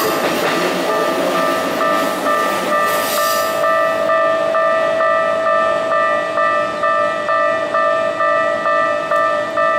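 Japanese level-crossing warning bell ringing in a steady repeating ding, about two strokes a second. A Keikyu train passes during the first three to four seconds, its running noise fading out under the bell.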